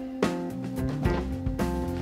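Background music: held pitched notes that change every half second or so, over short percussive hits.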